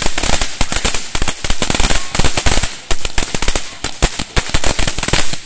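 TNT Fireworks "Game Mode" ground fountain crackling loudly: a dense, rapid stream of sharp pops and crackles from its spray of sparks, cutting off suddenly near the end as the fountain burns out.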